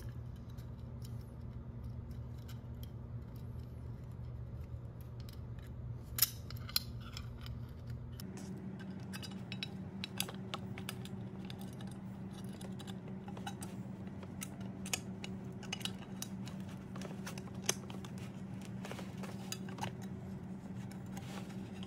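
Light metallic clicks and clinks of aluminium saw blade-guard parts and a spring being fitted together by hand, a few sharper knocks among them, over a steady low hum that shifts in pitch about eight seconds in.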